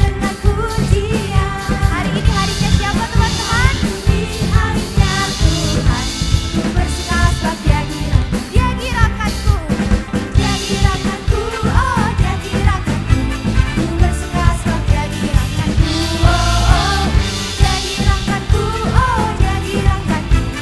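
Live worship band playing a song: a drum kit keeps a steady beat with regular kick and snare hits under bass, keys and electric guitars, while singers carry the melody.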